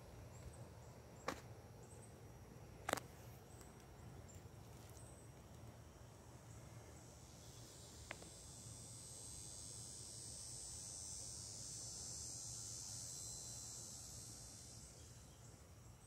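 An insect's high, steady buzzing call swells in from about halfway through and fades near the end, over a quiet woodland background. A couple of sharp clicks come in the first few seconds.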